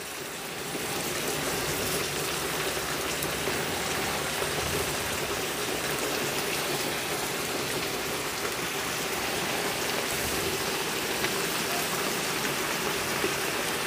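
Potato slices frying in oil in a large pan: a steady, soft sizzle. It hardly sizzles because the slices were dried before going in and hold almost no water.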